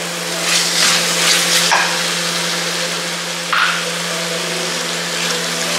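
Spiced tomato masala sizzling in a frying pan as it is stirred, with a few louder swells of hiss where the spoon turns it, over a steady low hum.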